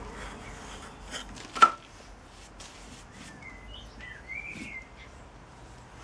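Light scraping of a wooden strike-off bar over moulding sand in a wooden flask, then a single sharp knock with a brief ring about a second and a half in as the tools are handled around the sprue pin. Birds chirp a few times near the middle.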